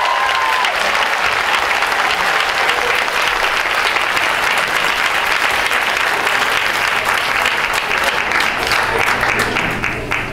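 Audience applauding steadily at the end of a stage number, dying down near the end. The last held note of the music fades out just under a second in.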